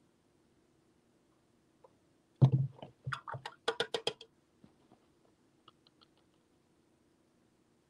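A thump followed by a quick run of clicks and light taps, like small objects being handled and set down on a table, about two and a half seconds in, then a few faint ticks, over a faint steady hum.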